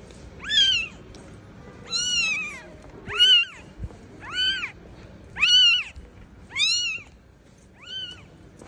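Newborn kitten mewing: seven high, thin cries, each rising and then falling in pitch, about one a second. These are the distress cries of a kitten left alone by its mother.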